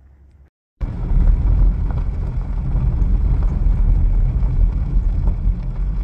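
About a second in, after a brief dropout, the loud steady noise of a vehicle driving on a dirt road begins, with wind buffeting the microphone.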